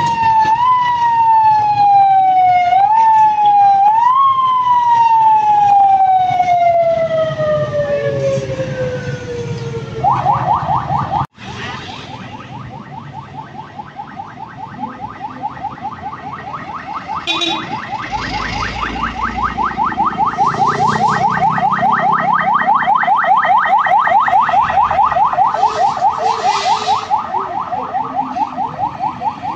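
Ambulance siren giving a few short rising whoops, then one long falling wind-down lasting about six seconds. About ten seconds in, the sound cuts to another ambulance siren on a rapid, evenly pulsing warble that runs to the end.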